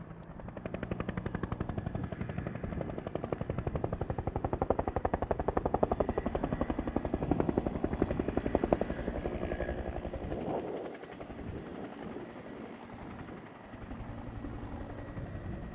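Firefighting helicopter flying past, its main rotor making a fast, even chop. The chop builds over the first second, is loudest a little past halfway, and fades after about ten seconds to a weaker, smoother drone as the helicopter moves away.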